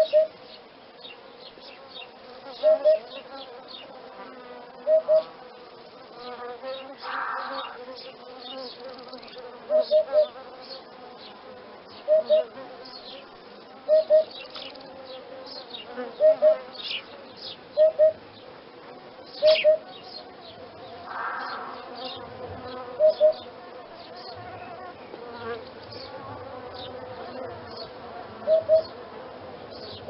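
Hoopoe calling: a low two-note "oop-oop" repeated about every two seconds, over a faint steady background of high chirps and buzzing.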